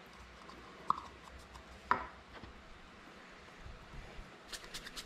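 Plastic jars of epoxy sculpting putty and their lids being handled: two sharp clicks about one and two seconds in, then a quick run of faint ticks near the end.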